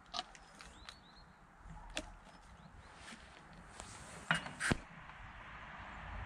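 Faint sounds of a horse standing and shifting under saddle: a few scattered clicks and knocks from hooves and bridle, the loudest two close together about four seconds in. A small bird chirps a few times about a second in.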